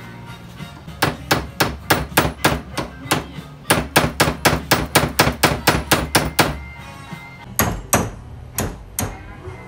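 Repeated hammer blows knocking a part out in a bench vise: a quick run of sharp strikes, about three a second, then a pause and four slower strikes near the end.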